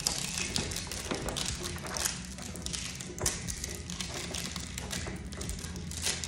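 Plastic Carnivalitos Cuteitos toy cups being handled and pried open by hand, giving scattered taps, clicks and crinkling of packaging.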